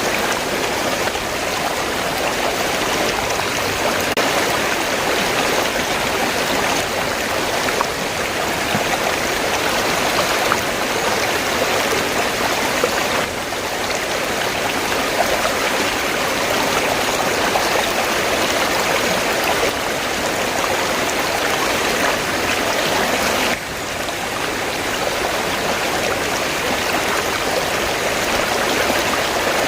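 River water flowing steadily, a continuous rushing and splashing that dips briefly about three quarters of the way through.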